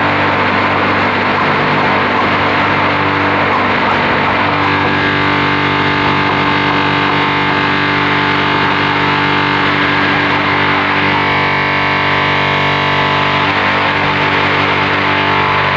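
Background music with sustained chords that change every few seconds.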